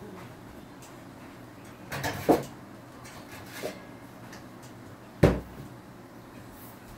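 Kitchen cabinet opened and shut while a utensil is fetched: a pair of knocks about two seconds in, a small tap, then a sharp bang about five seconds in.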